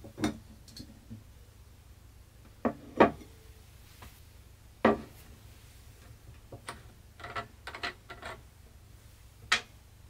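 Glass chimney cylinder and burner of a small tabletop bioethanol fireplace being handled, giving several sharp knocks and clunks against the table. About two-thirds of the way in comes a run of small clicks as the screw cap of a plastic bottle is twisted off, with one more knock near the end.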